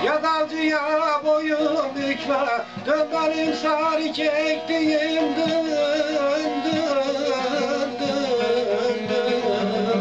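Instrumental passage of a Turkish folk song: a plucked string instrument under a wavering, ornamented melody line, over steady held tones.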